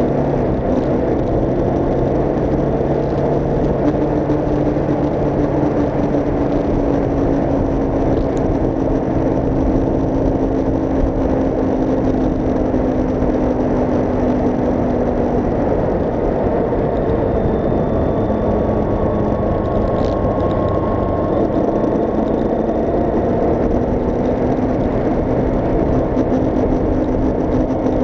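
Vehicle engine running under way with steady wind and road noise, the engine's pitch sliding slowly down and then back up as speed changes.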